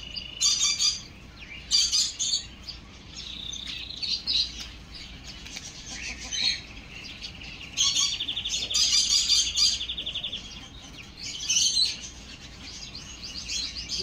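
Birds chirping and tweeting in repeated short, high bursts, with a fast trill lasting about two seconds near the middle.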